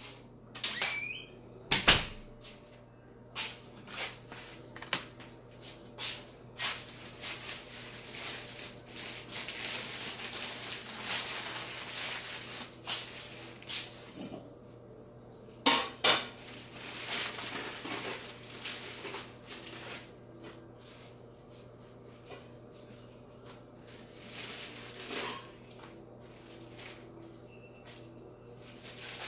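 Dishes and a serving platter being handled on a granite countertop: scattered knocks and clatter, with a sharp knock about two seconds in and a stretch of rustling noise in the middle.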